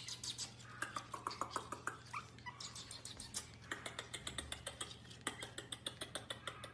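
Pomeranian puppy's claws clicking and scratching against wooden crib bars in a fast, uneven run of sharp clicks. There are a few short whines in the first couple of seconds.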